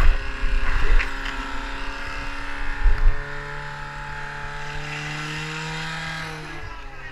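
Fire-sport portable fire pump engine running at high revs under load, a steady drone whose pitch drifts slightly as it drives water through the hoses to the nozzles. A few low thumps on the microphone come near the start and about three seconds in.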